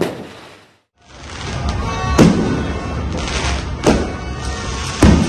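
Sound fades out to a moment of silence, then music returns with three sharp booms of fireworks going off over the last three seconds.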